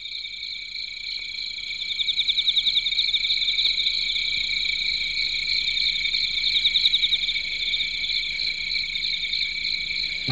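A steady, high-pitched trilling chorus of night animals, pulsing rapidly and swelling in loudness about two seconds in and again around seven seconds.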